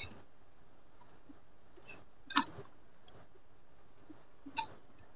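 Sparse clicks and crackles of a 2-litre plastic bottle being cut and handled, with the loudest snap about two and a half seconds in and another near the end.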